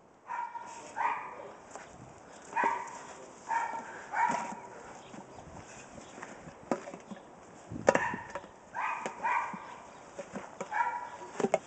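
A dog giving short, high-pitched yips, about eight of them in small clusters, with a few sharp knocks between them; the loudest knock comes about eight seconds in.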